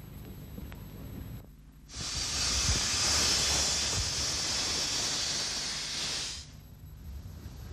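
Steam hissing from a Hudswell Clarke 0-4-0 saddle-tank steam locomotive, a steady hiss that starts suddenly about two seconds in and cuts off suddenly after about four and a half seconds.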